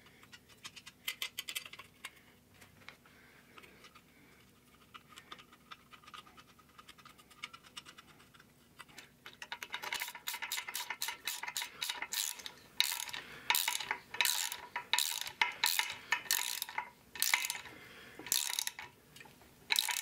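Hand ratchet wrench clicking while tightening bolts behind an axle hub flange. Light, fast clicking at first, then from about ten seconds in, louder back-and-forth ratchet strokes at about two a second.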